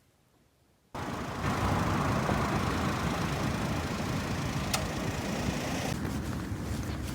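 About a second of near silence, then a steady, noisy background with a low rumble starts abruptly. A single short sharp click comes about halfway through.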